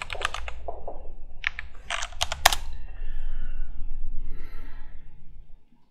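Typing on a computer keyboard. There is a quick run of keystrokes at the start and another burst around two seconds in, with the last key struck hardest, then only a faint low hum.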